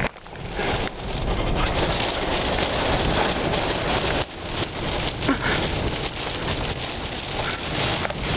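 Loud, steady noise of storm wind and rain on the microphone during the tornado, dropping away briefly at the start and again about halfway through.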